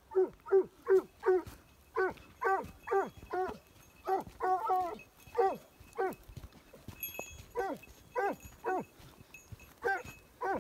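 A dog yelping: a long run of short, high yelps that drop in pitch, about two a second, some coming in quick clusters of three or four, with brief pauses between runs.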